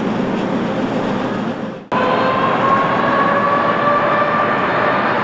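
Jet airliner engines running with a steady roar. After an abrupt cut about two seconds in, the roar comes back louder with a whine that slowly climbs in pitch.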